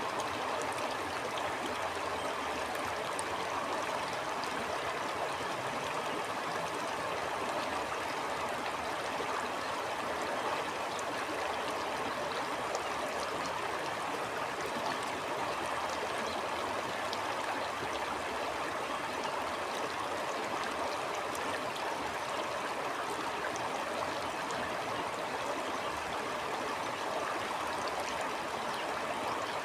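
A stream flowing steadily over stones, a continuous rushing and burbling of water with small splashes in it.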